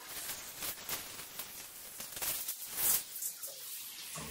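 Hands squishing and rubbing a hair treatment cream through long wet hair: a wet rustle full of small clicks, loudest about three seconds in.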